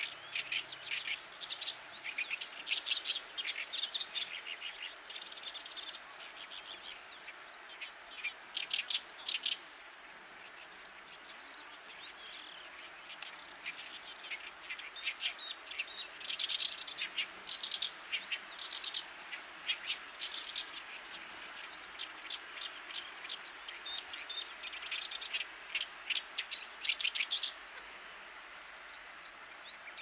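Oriental reed warbler singing: phrases of rapid chattering notes, repeated with short gaps, easing off about ten seconds in before picking up again.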